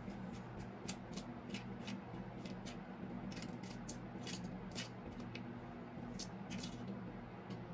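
Boiled wakegi scallion leaves popping and crackling under a kitchen knife pressed along them on a plastic cutting board, a "buchi-buchi" sound made by the slime inside the leaves being squeezed out. The sharp little pops come irregularly, a few a second.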